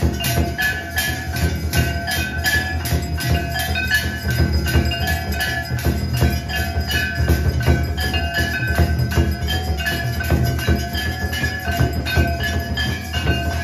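A handheld brass plate gong struck with a stick together with a large rope-laced drum, keeping up a fast, even beat of about four or five strokes a second, with the metal ringing on between strokes. It is the steady percussion of a temple aarti.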